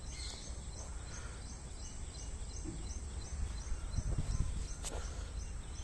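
Outdoor ambience: a steady low rumble with a high, even chirp repeating about three times a second, and a single sharp click about five seconds in.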